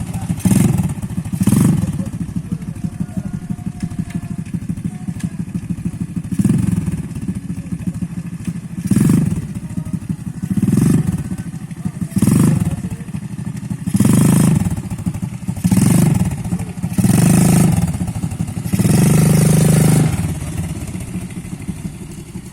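ATV engine running with a steady low rumble. It rises in about a dozen louder surges, spaced a second or two apart, with the longest near the end.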